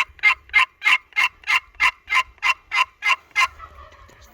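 A run of about a dozen evenly spaced turkey yelps, about three a second, that stops a little before the end.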